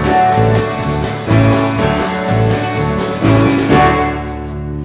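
Live worship band playing an instrumental break with guitar between sung lines, no voices. Near the end the high sound falls away, leaving a held low chord.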